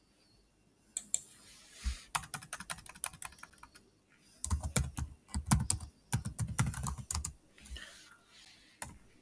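Typing on a computer keyboard: two quick runs of key clicks, the first starting about a second in and the second about halfway through, with a few single clicks near the end.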